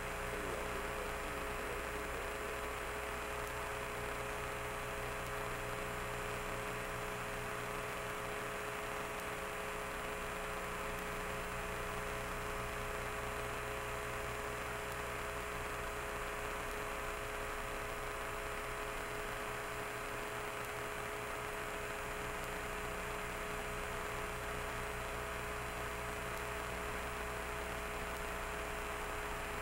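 Steady electrical hum with several held tones over a background of hiss, unchanging throughout. It is the noise of an empty audio channel with no voice on it.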